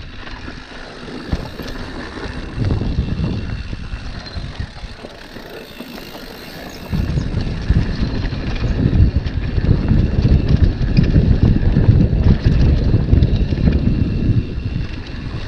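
Mountain bike riding downhill on a dirt trail: wind buffeting the microphone over the rumble of the tyres on loose dirt, with scattered small rattles and ticks from the bike. The rumble gets much louder about halfway through.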